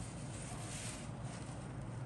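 Paper instruction sheet rustling as it is handled and slid along, loudest around the middle, over a steady low hum.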